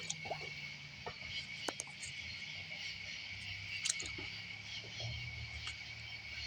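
Night-time crickets or similar insects calling in a steady high drone, with a faint low hum beneath and a few sharp clicks, the loudest about four seconds in.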